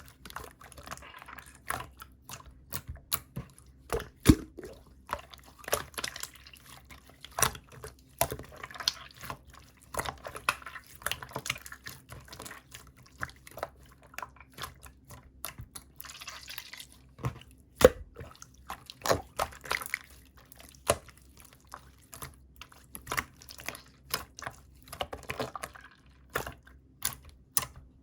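Thick, chewy slime being squeezed and pressed by hand, giving a rapid, irregular run of sticky pops and clicks with short squelching patches.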